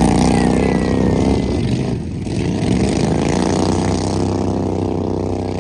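Racing lawn mower engines running hard, easing off briefly about two seconds in and then picking back up.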